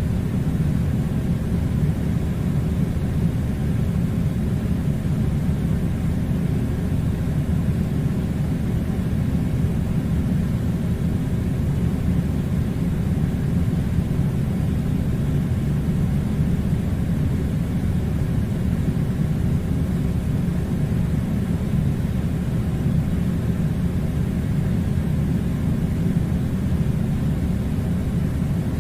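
Air conditioner running: a steady, low rushing of blown air that does not change.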